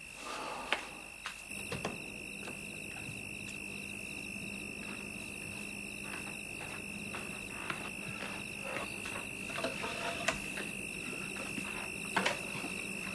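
A steady high-pitched tone, like a continuous electronic whine or insect trill, sets in about a second and a half in and holds, with a faint low hum beneath it. Scattered soft knocks and footfalls come and go as someone moves about and handles a cloth-covered birdcage.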